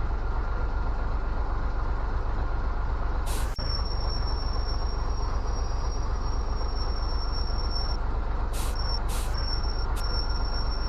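Remote-control construction truck running: a steady rumbling noise with a faint motor whine. After a brief dropout about three and a half seconds in, a high electric whine comes in and breaks off a few times, with several short clicks in the second half.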